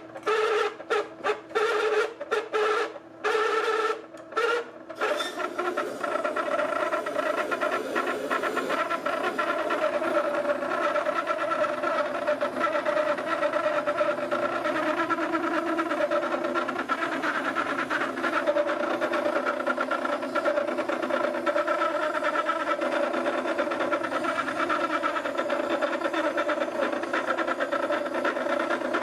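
Wet wheel grinder running while a steel planer knife is drawn across its whetstone, a steady grinding hum with a few short breaks in the first five seconds, then continuous.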